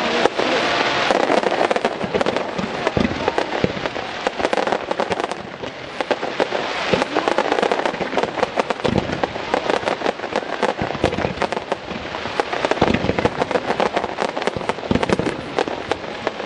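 Fireworks barrage: shells and ground-level effects bursting in rapid succession with a dense, continuous crackle, and several deeper booms standing out.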